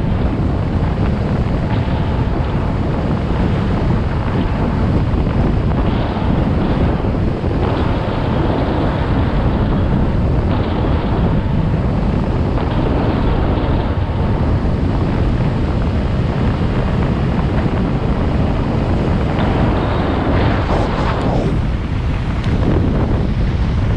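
Loud, steady wind buffeting the microphone on a vehicle moving at road speed.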